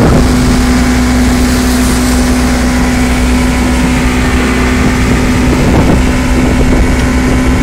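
Motorboat engine running at a steady speed while under way, a constant drone with a steady hum in it, over an even rushing noise of wind and water.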